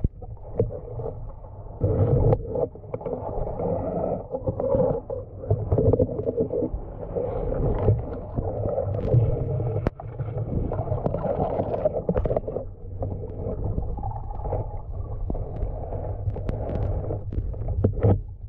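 Muffled underwater rumbling and gurgling as water moves around a diver's camera, with scattered faint clicks and knocks.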